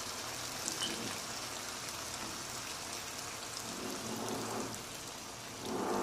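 Chicken and potato curry simmering in a pan, a steady hiss like light rain. Coconut milk is poured into it in the second half. A brief humming sound rises near the end.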